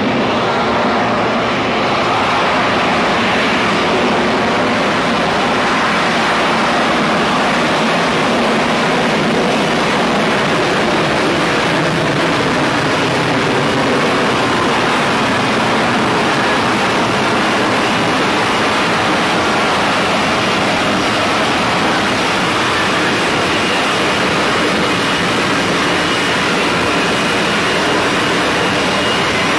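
F-35B Lightning II's jet engine and lift fan running loud and steady as the fighter hovers in for a vertical landing.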